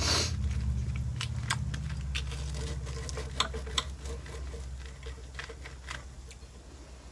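Close-miked eating sounds: chewing of pasta bake with scattered small clicks and taps of cutlery against a plate, over a steady low hum.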